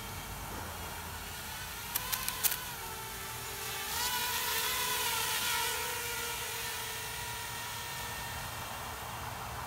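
Custom-built FPV racing quadcopter's motors and propellers whining as it lifts off. The whine swells louder and higher about four seconds in, then steadies, with a quick run of sharp clicks about two seconds in.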